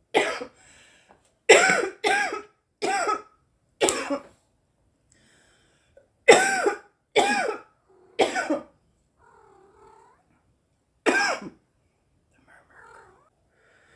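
A woman coughing hard, with nine voiced coughs in bouts: one at the start, a run of four, then three, and a single one near the end.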